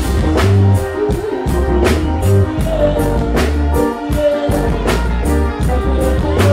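Live reggae backing band playing: a drum kit keeping a steady beat under heavy bass, with guitar and keyboards on top.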